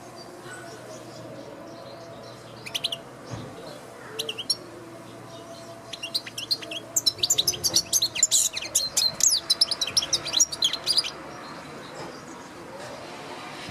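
European goldfinch singing: a few short chirps, then a fast, liquid twittering phrase of about five seconds.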